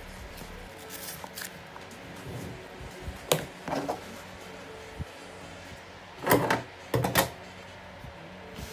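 Several short clatters and rustles of an item and its packaging being handled, loudest in two bursts a little past halfway, over faint background music.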